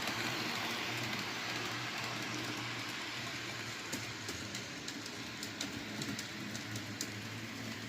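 HO scale model train running on its track: a steady whirring rumble with scattered sharp clicks from the wheels on the rails.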